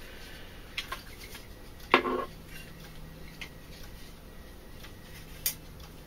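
Sparse light clicks and clinks of a remote control's opened plastic case and a small knife being handled on a table, with quiet gaps between; the sharpest click comes near the end.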